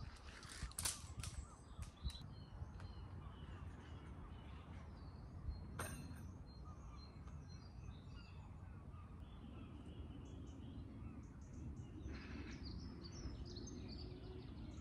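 Small birds chirping again and again over a low steady rumble, with a few sharp clicks about a second in and another near the middle.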